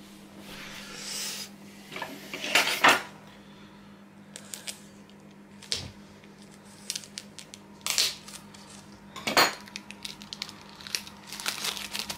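Kitchen knife scraping and knocking against a scorched bell pepper and a wooden cutting board, making irregular short scrapes and clicks over a faint low hum.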